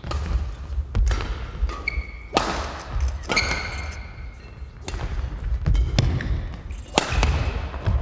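Badminton singles rally in a large echoing sports hall: sharp racket strikes on the shuttlecock about every second, court shoes squeaking briefly on the floor, and heavy thuds of players' footwork and landings.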